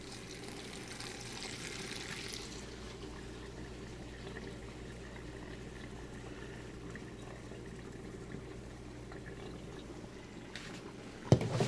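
Murky wash water gravity-draining from a twin tub washing machine into a bucket, a steady pouring, a little stronger in the first two seconds or so. A sharp knock near the end.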